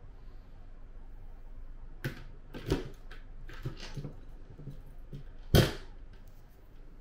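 A key fitted and turned in a small locker lock: a run of light clicks and rattles, then a sharp, louder clack a little over five seconds in as the locker door comes open.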